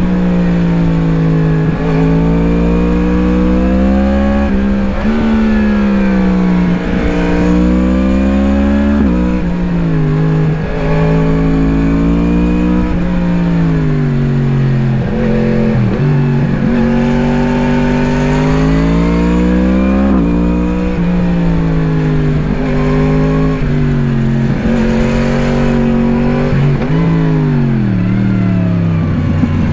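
2017 Yamaha MT-10's crossplane inline-four through an Akrapovič slip-on exhaust, heard onboard while riding hard. The engine note climbs under throttle, drops at gear changes and when the throttle is closed, and then climbs again, many times over.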